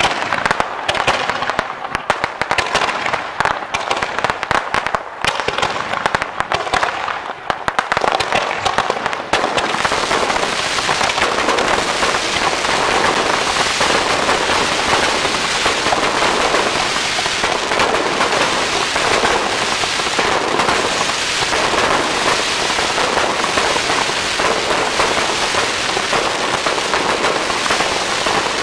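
Aerial fireworks going off: a rapid string of bangs and pops for about the first nine seconds, then merging into a continuous, dense crackle of many shells bursting at once.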